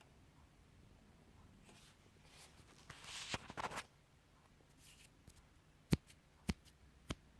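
Hands handling a small speaker's parts and wire terminals: a scraping rustle a few seconds in, then three sharp clicks about half a second apart near the end.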